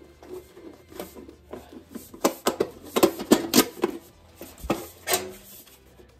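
Galvanized sheet-metal pipe being handled and snapped together: a string of light metallic clicks and clatters, busiest around the middle with another cluster about five seconds in.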